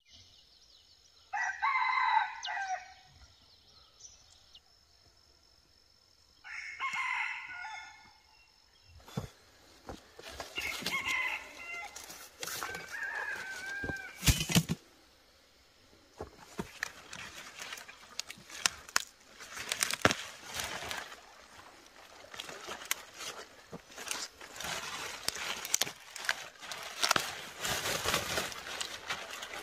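A rooster crows twice, each crow about a second and a half long, followed by shorter calls and then a run of crackling, rustling and clicking noises with one loud knock about halfway through.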